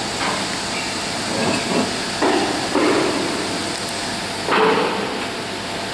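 Steady workshop noise with a hiss underneath, broken by a few short clanks, the loudest about four and a half seconds in.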